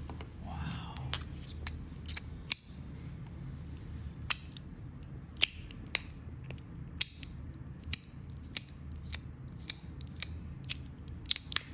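Handheld multi-fidget toy being clicked: about twenty sharp, snappy clicks at uneven spacing, one or two a second.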